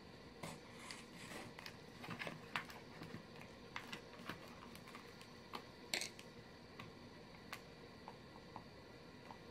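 Faint, irregular ticks and rustles of leather being hand-stitched, as the needle and thread are pushed and pulled through the leather, with one sharper click about six seconds in.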